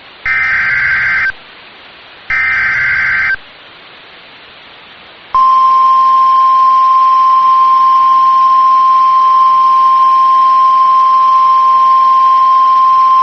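NOAA Weather Radio emergency alert signals announcing a severe thunderstorm warning. First come two short, identical screechy bursts of SAME digital header data, about a second apart. Then, about five seconds in, the long, steady single-pitch 1050 Hz warning alarm tone starts.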